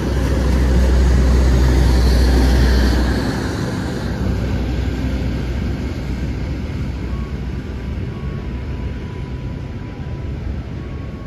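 Long-distance passenger train running past on the rails with a loud low rumble for the first three seconds, then fading as the rear of the train draws away.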